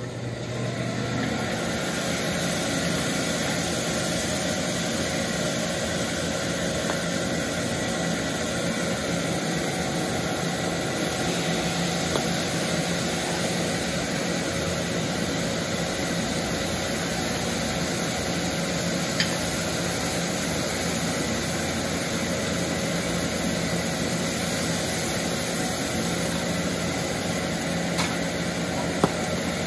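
Horumon (offal) sizzling steadily on a hot flat-top griddle, the sizzle rising as the pieces are tipped onto the plate. A few sharp clicks of the cooking utensils on the griddle, the last two near the end.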